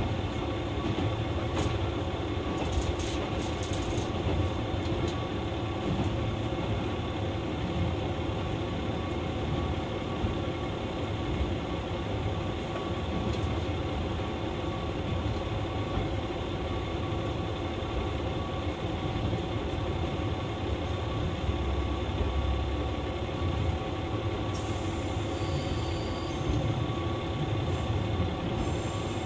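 JR West KiHa 120 series diesel railcar running: a steady low rumble of the engine and wheels on the rails, with a few constant tones over it.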